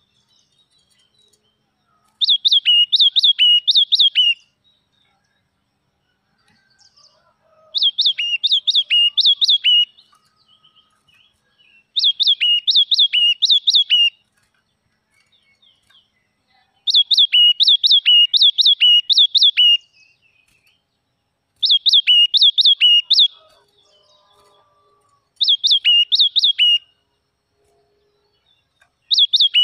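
Red-whiskered bulbul singing in a repeated pattern: about seven bursts, each of four to six quick whistled notes that each drop sharply in pitch, spaced a few seconds apart.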